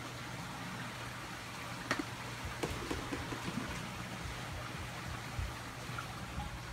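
Steady rush of water with a low, even hum from a large aquarium's filtration running, with a few light clicks about two to three seconds in.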